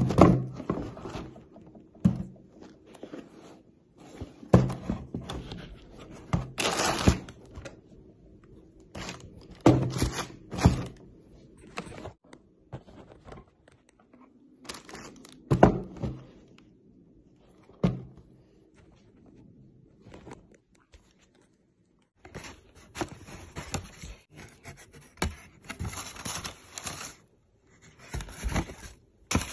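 Sneakers being handled and set down on a cardboard shoebox: scattered knocks, thuds and scrapes. In the last seven seconds or so, tissue paper in a shoebox rustles and crinkles almost without a break.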